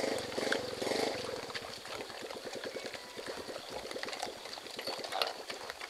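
Pigs eating grain from a wooden trough: a dense, rapid run of crunching and chomping clicks.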